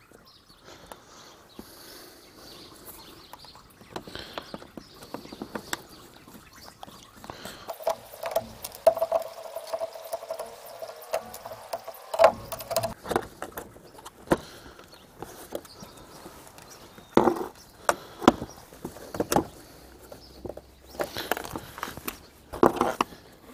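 Plastic retaining clips on a car's intake hose being prised off with a screwdriver: scattered clicks, snaps and scrapes of metal tool on plastic, louder and more frequent in the second half.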